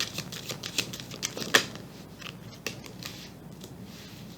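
Tarot cards being handled: a run of quick clicks and rustles over the first three seconds, the sharpest about a second and a half in.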